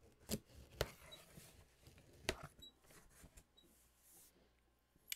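Hands working at a cardboard shipping box to open it: faint scraping and rustling with a few sharp taps and clicks, the loudest three within the first two and a half seconds.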